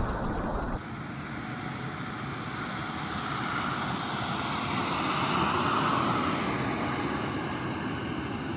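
A louder sound cuts off just under a second in. Then comes the distant jet engine noise of a Boeing 737 MAX 8 on final approach: a steady rushing sound that swells a little midway and then eases.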